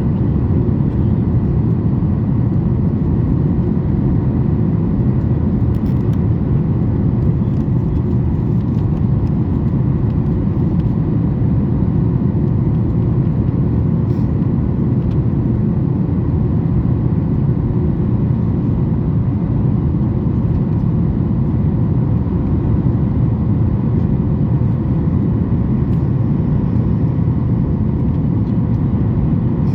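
Steady low rumble inside the cabin of a Boeing 737 MAX 8 in flight: the CFM LEAP-1B engines and the airflow over the fuselage, heard from a window seat.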